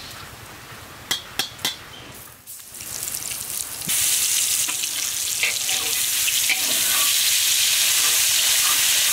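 Three sharp clicks early on, then about four seconds in a loud sizzle starts suddenly as water is poured onto spice paste frying in hot oil in a large iron karahi, and keeps hissing and spitting.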